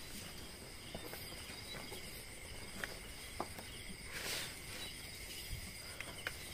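Faint, steady chorus of night crickets and other insects, with a few sharp little clicks and a short rustle about four seconds in.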